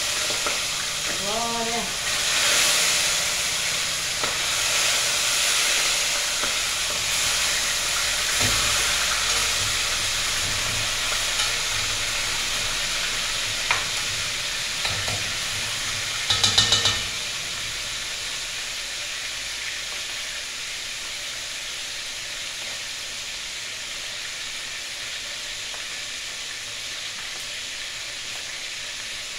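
Chicken pieces frying in hot oil in a steel pot on a gas stove, a steady sizzle that slowly softens through the second half as the chicken is stirred. A few sharp knocks break through, then a brief rattle about sixteen seconds in.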